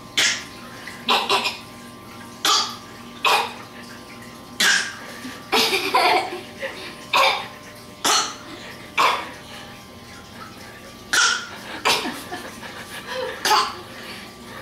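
A toddler imitating a cough: short, forced coughs repeated about once a second, some in quick pairs.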